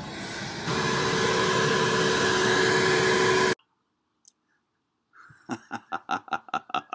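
Shop vacuum running steadily with a motor whine as it sucks up dandelions from a lawn, cutting off suddenly about three and a half seconds in. After a short silence, a man laughs in quick bursts near the end.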